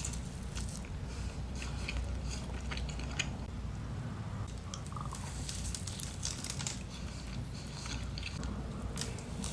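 Close-miked chewing and biting of a donut, with many short, soft mouth clicks over a low steady hum.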